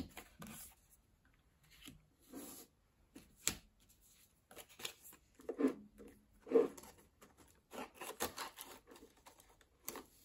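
Paper placeholder notes and a plastic binder pocket rustling and crinkling as they are handled, with a few sharp clicks.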